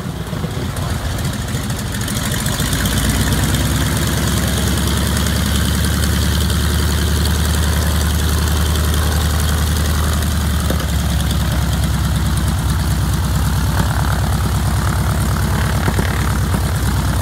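Biplane's cowled radial engine idling at low power with a steady pulsing firing beat as the aircraft taxis, rising slightly in level over the first couple of seconds.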